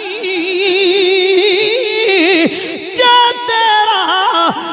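A man's voice singing a drawn-out line of devotional verse unaccompanied, the pitch sliding and wavering. There is a brief break about two and a half seconds in, then a louder held note.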